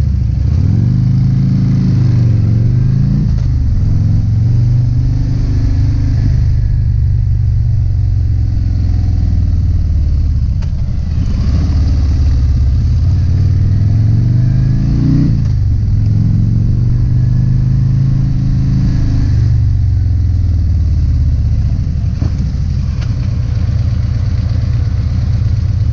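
Harley-Davidson CVO motorcycle's V-twin engine under way, pulling up in pitch and dropping sharply at each upshift several times, with wind rush over the microphone.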